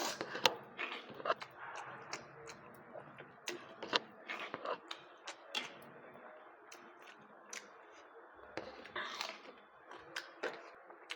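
A person eating close to the microphone: irregular wet chewing and mouth-smacking clicks.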